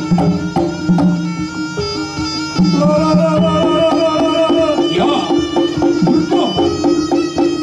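Traditional music: a reedy wind instrument plays a wavering, held melody over drum strokes.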